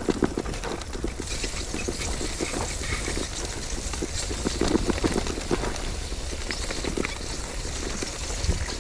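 Brompton folding bike riding over a wet, muddy, rutted track: tyres swishing through the mud and water with frequent rattles and knocks from the bike over the bumps, and wind rumbling on the microphone.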